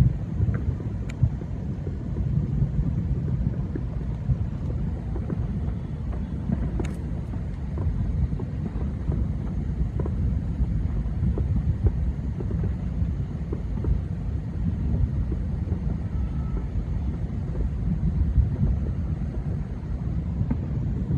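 Thousands of distant fireworks merging into a continuous low rumble like rolling thunder, with occasional sharper cracks from nearer ones standing out.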